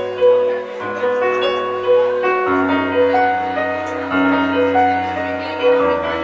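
Stage keyboard in a piano voice playing a slow, gentle song: held chords over a low bass note that changes every second or two.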